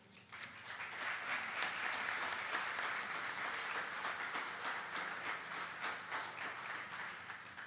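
Audience applauding, many hands clapping together. It swells up just after the start, holds steady, and dies away near the end.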